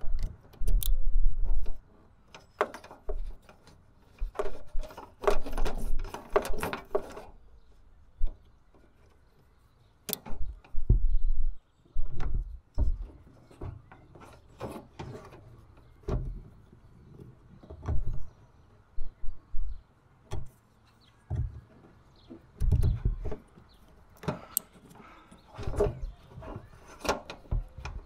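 Irregular knocks, clunks and rattles of solar panel brackets and fittings being handled and fixed on a van's metal roof, in bursts with a short quiet spell about eight seconds in.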